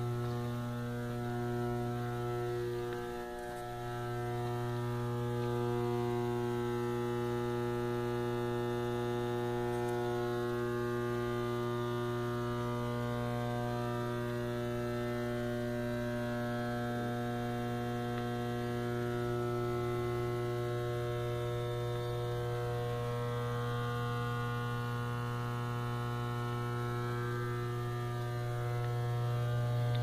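Electrical boxes humming on mains power: a steady, low electrical hum with many higher overtones, dipping briefly about three seconds in and growing louder near the end.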